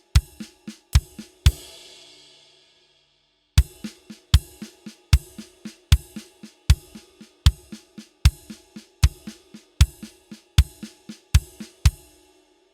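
Drum kit playing a groups-of-three groove, with cymbal strokes doubled by the bass drum and quiet snare ghost notes in between. One pass ends about a second and a half in with the cymbal ringing out. After a short gap the groove starts again and runs until near the end, then stops and the last hit rings away.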